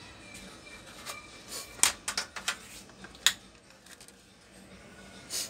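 Several sharp clicks and taps, clustered about two seconds in with one more a second later, then a brief rustle near the end. This is handling noise as a black power cord and its plug are laid onto an LED TV's sheet-metal backlight panel.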